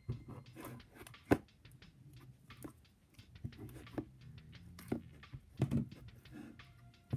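Sticky white glue slime being squeezed and pulled apart by hand, giving irregular wet clicks and pops, the sharpest about a second in.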